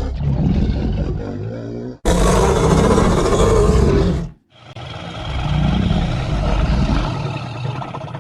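Kaiju monster roar sound effects: three growling roars one after another, each cut off sharply, the second the loudest and brightest.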